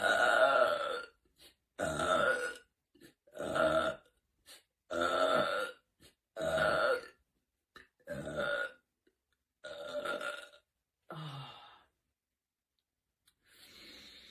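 A woman belching repeatedly: about nine separate burps, roughly one every second and a half. The first is the longest and loudest, and the last is fainter.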